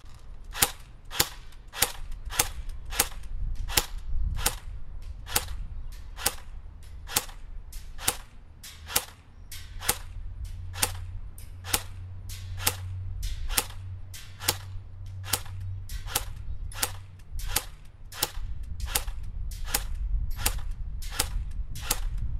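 CYMA CM028C electric airsoft AK (AEG) firing single shots on semi-auto, one sharp pop at a time at a steady pace of about one and a half shots a second, during an accuracy test at a downrange target.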